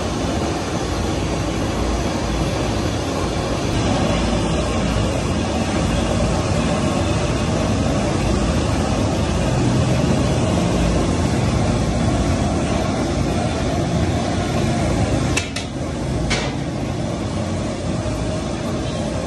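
Steady roar of a gas burner flame under a large aluminium pot of boiling stock, with the boil adding to it. Two sharp knocks about a second apart come near the end.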